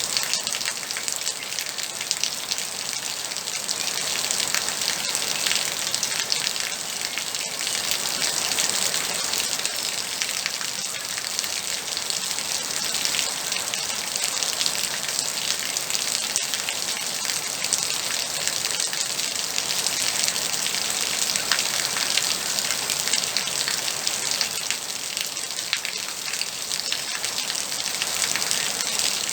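Steady moderate rain: a dense, even patter of raindrops on a surface.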